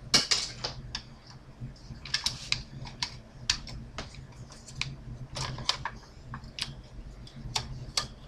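Irregular small clicks and ticks of a screwdriver turning out the corner screws of a CPU cooler on a motherboard, with metal and plastic parts knocking lightly, over a faint steady low hum.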